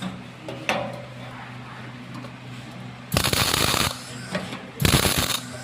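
CO2 (MIG) welding arc crackling in two short bursts a little over a second apart, as on tack welds, over a steady low hum.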